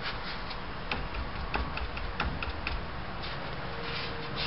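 A few light, irregular clicks and knocks as a cedar lamp blank is turned by hand and hit to centre it in a wood lathe's chuck.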